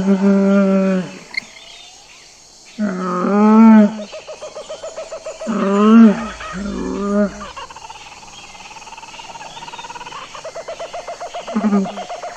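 Camel calling: a run of loud, wavering bellows a couple of seconds apart, then a fainter, longer, higher-pitched call.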